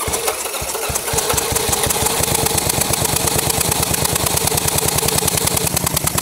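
Two-cylinder motorcycle engine turning over with a fast, even pulse for about six seconds, then stopping. The rear cylinder's spark plug is pulled out to check whether that cylinder gets spark.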